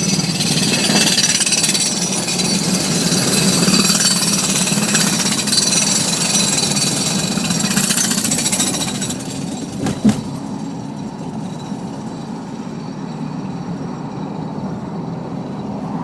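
Car driving across the bridge through the work zone, with loud, rough tyre and road noise for about the first nine seconds. A single sharp thump about ten seconds in, as the car goes over the temporary bump, is followed by quieter, steady driving noise.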